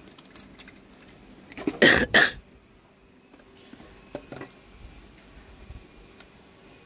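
A person coughs twice in quick succession about two seconds in. A few faint clicks follow later.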